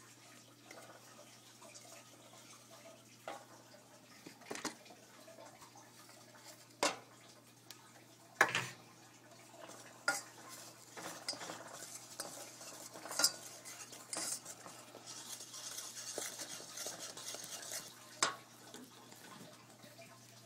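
Utensil stirring in a stainless steel pot of melting sugar and baking soda, knocking against the pot with several sharp clinks. A soft hiss is heard for a few seconds about three quarters of the way through.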